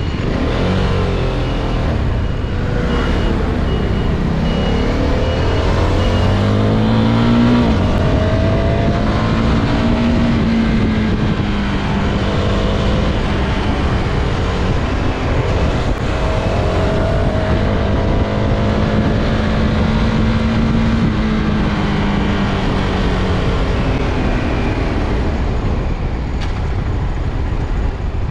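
CFMOTO 250SR motorcycle engine on the move. Its revs climb and drop several times as it accelerates through the gears and then slows, over steady road and wind noise.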